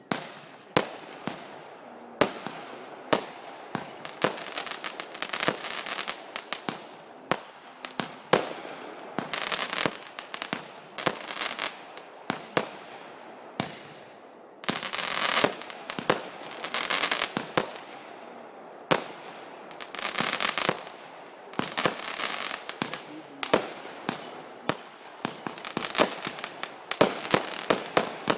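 Fireworks going off one after another: sharp bangs every second or so, with long stretches of rapid crackling.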